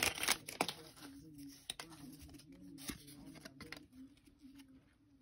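Panini Prestige football trading cards being handled and flipped through by hand: soft rustles and small clicks of card stock sliding over card stock, with a short burst of crinkly wrapper noise in the first second.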